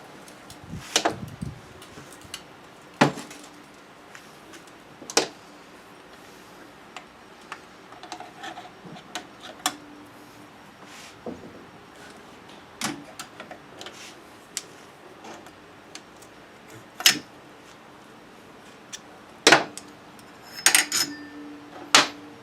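Metal hand tools and small engine parts clicking, tapping and clinking at irregular intervals while the piston is being taken off a scooter's two-stroke engine. There are about a dozen sharp knocks, with a short metallic jingle near the end.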